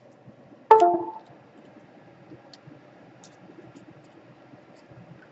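A single sharp metallic clank about a second in, ringing briefly as it dies away, from a metal tool being set down on the workbench; a few faint ticks follow.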